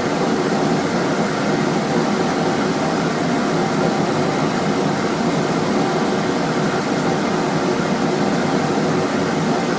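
Steady rushing noise of a running forge or its air blower, even and unbroken, with no hammer blows.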